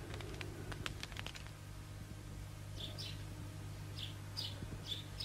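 Campfire crackling with sharp snaps for the first second and a half, then short, high, falling bird chirps about once or twice a second, over a low steady hum.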